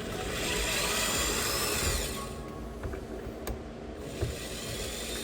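Small electric screwdriver whirring in two runs, each about two seconds long, backing out screws.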